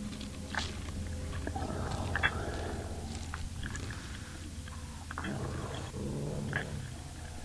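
Wet chewing and biting noises with scattered sharp clicks and smacks, the loudest about two seconds in, over a steady low hum and a hiss of static.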